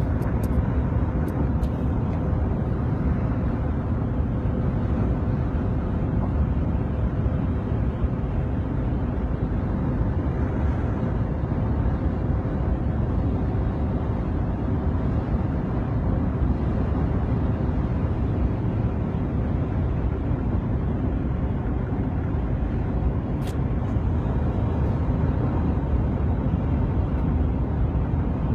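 Steady road and engine noise heard inside a moving car: an even rumble of tyres and wind with a faint steady hum running under it.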